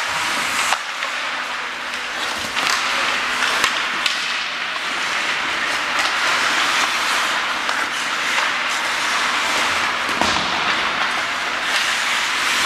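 Ice hockey skates scraping and carving across rink ice in a steady hiss, with scattered sharp clacks of sticks and puck.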